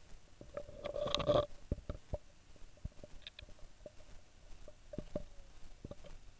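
Close handling noise of a small camera being moved about among roots and twigs: a louder burst of scraping and rustling about a second in, then a string of single clicks and taps.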